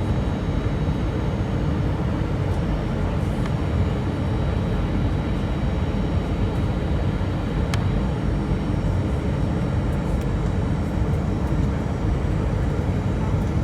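Steady rumble of air and engine noise inside the cabin of an Airbus A320, with one faint click about eight seconds in.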